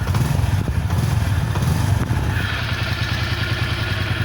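Honda Biz 125's single-cylinder four-stroke engine running steadily just after a kick start, freshly rebuilt with a rebored cylinder, new piston, connecting rod and crankshaft bearings to cure piston slap. A steady hiss joins about halfway through.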